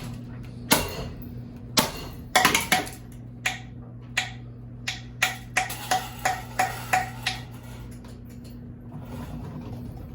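A series of sharp knocks and bangs on hard objects, some with a short ring, irregular at first and then coming quickly one after another before stopping about three quarters of the way in, over a steady low hum.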